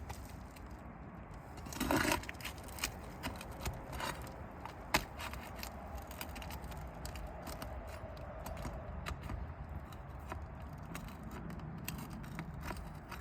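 Scraping and clicking of roofing nails being pried out from under asphalt shingles: a short burst of scraping about two seconds in, scattered ticks and one sharp click about five seconds in, then softer ticks.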